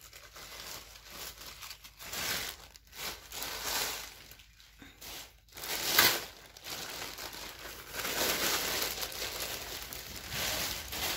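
Thin black plastic bag crinkling and rustling as it is unwrapped and pulled off a basket, in repeated bursts, loudest about six seconds in.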